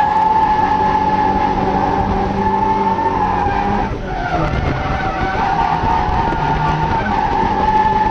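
Drift car engine held at high revs while the tyres skid through a slide, heard from inside the cabin. About four seconds in the revs briefly drop, then climb back up and hold.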